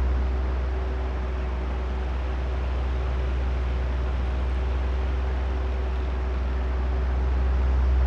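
Oscillating electric fan running: a steady low motor hum under an even rush of air. The loudness sinks about a second in and swells back near the end as the fan head turns back and forth.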